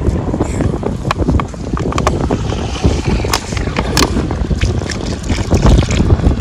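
Wind rumbling on the microphone by the sea, with scattered scrapes and taps from hands digging into wet sand.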